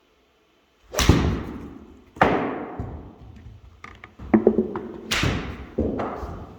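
Golf shots: a series of sharp club-on-ball hits, roughly one a second, each followed by a reverberant tail. The first comes about a second in.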